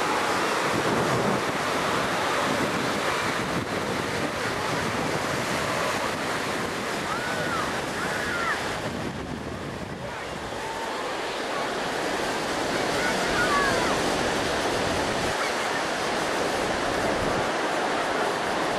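Ocean surf washing onto the beach, with wind buffeting the microphone; the noise eases briefly about nine seconds in.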